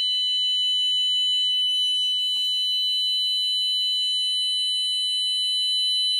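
Car licence-plate anti-theft alarm sounding one steady, high-pitched tone without a break. It goes off when a plate bolt is taken out of its sensor.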